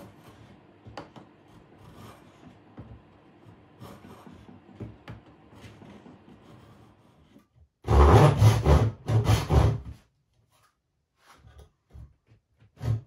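A hand tool scraping ash wood in strokes: light rubbing at first, then a run of several loud strokes in quick succession about eight seconds in, a short pause, and the strokes start again near the end.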